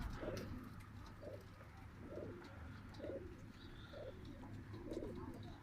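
Domestic pigeons cooing softly, a low coo repeating about once a second.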